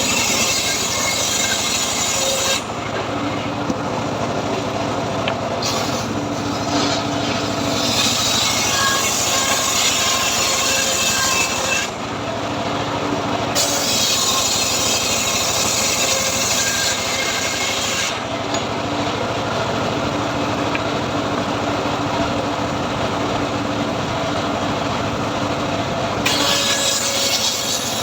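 Homemade sawmill cutting a teak log, running continuously with a steady hum under a rasping saw noise. The high rasp drops away and comes back several times as the cut goes on.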